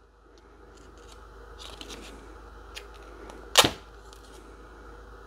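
Faint handling noise of a small coated metal test panel being lifted off duct tape and turned over in the hand on a workbench, with light clicks and one sharp tap about three and a half seconds in.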